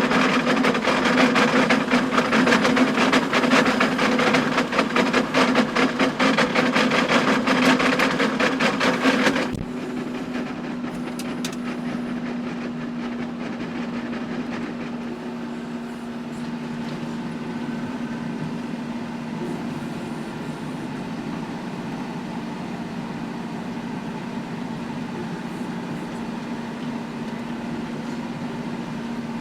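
Tractor-driven power harrow working stony ground: a loud, dense clatter of stones knocking against the tines over the steady engine note. About nine seconds in the clatter stops abruptly, leaving the John Deere tractor's engine running steadily.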